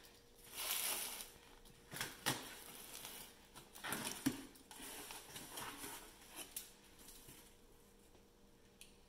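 Utility knife slitting the packing tape on a cardboard box and the box's flaps being pulled open: scraping and tearing, with scattered sharp knocks and cardboard rustles.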